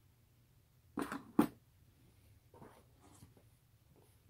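Small flashlight being opened and loaded with batteries by hand: two sharp clicks about a second in, the second the louder, then a few faint clicks and rubs.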